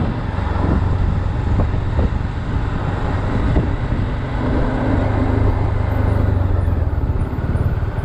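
Bajaj Dominar 400's single-cylinder engine running under way at low road speed, heard from the rider's seat with wind and road noise, easing off a little near the end as the bike slows.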